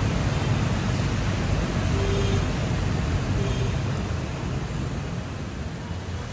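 Steady hiss of rain and wet traffic over a low vehicle rumble on a rain-soaked street, easing down over the last couple of seconds.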